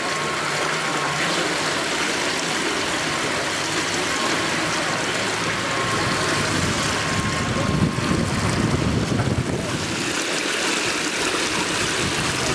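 Steady rushing and splashing of water on a choppy pool, with a louder low rumble for a couple of seconds about two-thirds of the way through.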